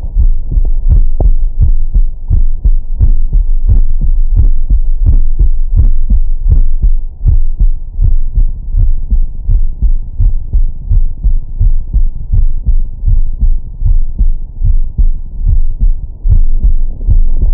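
A man's heartbeat picked up by a Stemoscope digital stethoscope on the chest and filtered to 20–1000 Hz: a steady, regular run of loud beats with a heavy bass.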